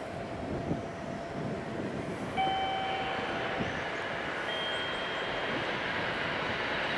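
Distant rumble of an approaching freight train hauled by an EF66 electric locomotive, growing steadily louder. A brief high steady tone sounds about two and a half seconds in and another about four and a half seconds in.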